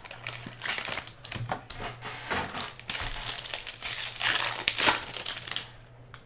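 Trading card packaging wrapper crinkling and being torn open by hand, a dense run of irregular crackles that stops about a second before the end.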